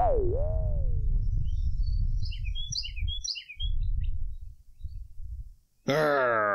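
Cartoon soundtrack: a loud, wavering, whistle-like tone falling in pitch opens it, over a low rumble. Songbirds chirp briefly in the middle, then about six seconds in a loud, steady, deep buzzy note begins.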